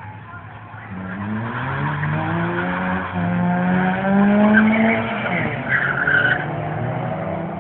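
Road car accelerating flat out down a drag strip: the engine starts about a second in and climbs in pitch through several gear changes. A brief high squeal comes about six seconds in.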